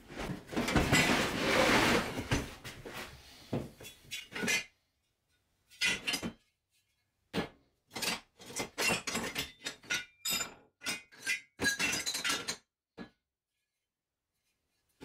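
Scrap steel offcuts clattering and clinking against each other as they are rummaged through in a plastic bin: a dense clatter for the first four seconds or so, then a string of short separate clinks and knocks, stopping about two seconds before the end.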